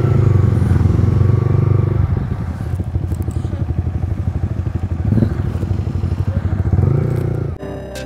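Yamaha R15 V3's single-cylinder engine running at low revs as the motorcycle rides off, with a short rise in revs shortly before the end. It cuts off abruptly into music in the last half second.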